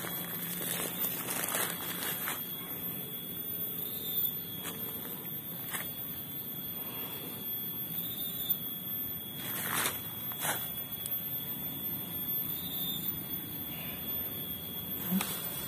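Outdoor ambience: a steady high-pitched buzz held throughout, with a few brief clicks and rustles of handling.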